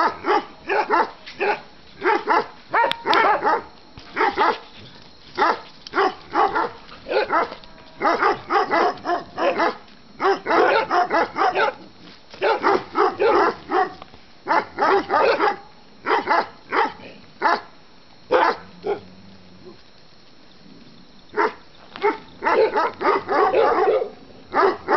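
Small dogs barking in quick runs of short, high barks, with a pause of about three seconds about two-thirds of the way through before the barking starts again.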